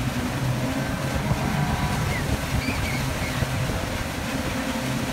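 Pontoon boat engine running steadily at towing speed, with the rush of the churning wake and wind across the microphone.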